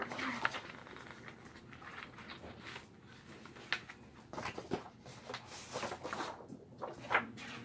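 Rustling and scattered light clicks of cardboard game pieces being handled and fitted together, with a few sharper clicks about half a second in, midway and near the end.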